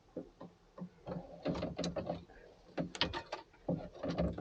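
Hand tools working screws off a metal cover panel: a run of irregular small clicks, knocks and rattles.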